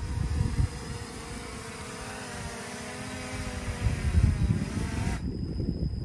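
Small folding quadcopter drone's propellers whining steadily while it is held in the hand; the whine dips slightly in pitch, then cuts off abruptly about five seconds in as the motors stop. Wind rumbles on the microphone in gusts.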